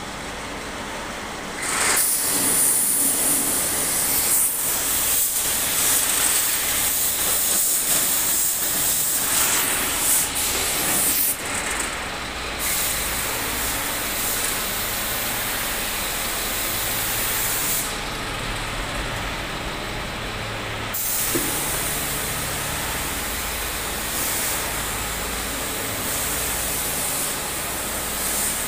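Compressed-air paint spray gun hissing steadily as paint is sprayed, starting about two seconds in, with the spray letting up briefly near 12 seconds and for about three seconds around 18 seconds.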